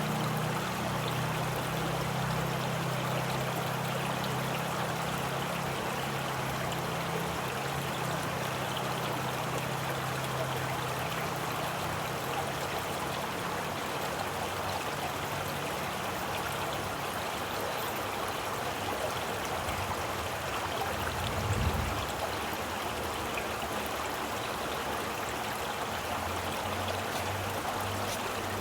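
Stream water flowing steadily. A low hum underneath fades out in the first dozen seconds, and there is a brief low thud a little past the middle.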